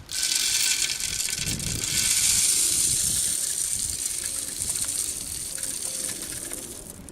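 Bird seed being poured out in a steady stream, a rushing hiss of small seeds that starts suddenly and tails off near the end.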